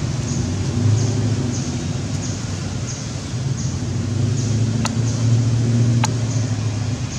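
A steady low motor rumble, swelling a little partway through, with a faint high chirp repeating about every two-thirds of a second and two sharp clicks about a second apart near the end.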